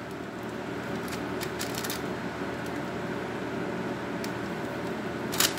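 Steady background hum of a small kitchen with faint plastic crinkles and ticks as cookie dough is squeezed from a zip-top plastic bag, and a sharper click near the end.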